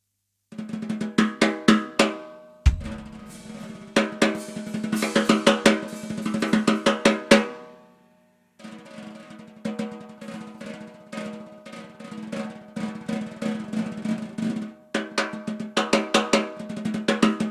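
Gas Custom 14x5 straight-wall aluminium snare drum with Remo Ambassador heads played unmuffled: quick strokes, accents and short rolls, the shell ringing on at one steady pitch, with a low thump about three seconds in and a brief break a little past halfway.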